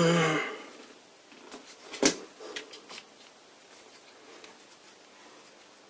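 Light clicks and handling noise as a hand grips and turns the lathe chuck, with one sharp click about two seconds in.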